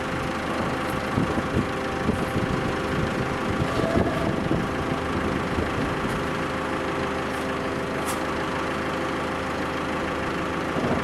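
Forklift engine idling steadily with the load held raised, with a few short knocks in the first few seconds.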